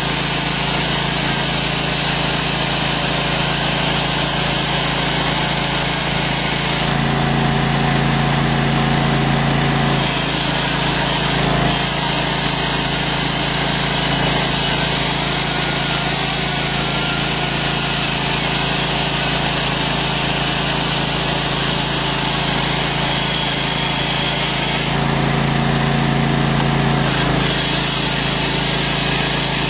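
ICS 823 hydraulic chainsaw with a diamond chain, water-fed, cutting through a concrete block: a loud, steady grinding, with the Briggs & Stratton Vanguard 18 hp V-twin engine of the P95 hydraulic power unit running under it. Twice, about seven and twenty-five seconds in, the grinding eases for a couple of seconds and a lower steady hum comes through.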